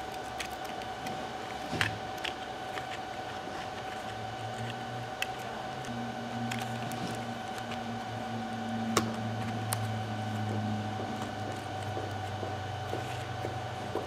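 Scattered light clicks and taps as a laptop hard drive is fitted into its plastic Toughbook CF-51 caddy with rubber bumper strips and pressed into place, over a steady background hum. A low rumble comes in about four seconds in and fades near the end.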